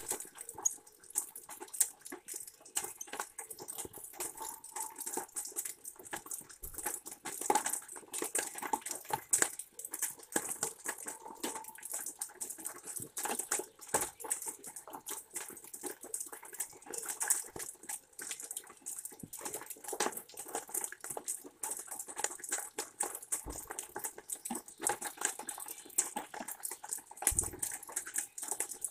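Rain dripping onto wet wood close to the microphone: a steady, irregular run of small ticks and drips over a light hiss, with a couple of soft knocks near the end.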